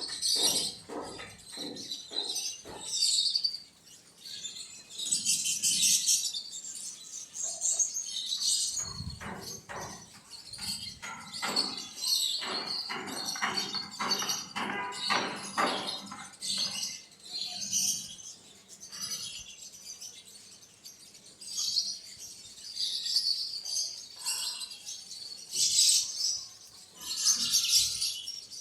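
Many quails chirping with short, high calls throughout, over runs of rapid taps about three or four a second, early on and again from about nine to sixteen seconds in.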